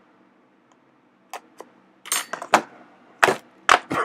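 A knife being handled: two faint clicks, then from about halfway a run of about five sharp metal clicks and clinks.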